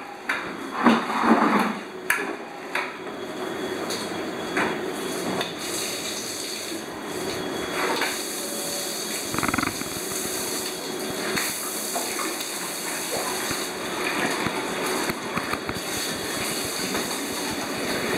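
Running water splashing steadily, with clatter and knocks, loudest in a few noisy swells in the first two seconds.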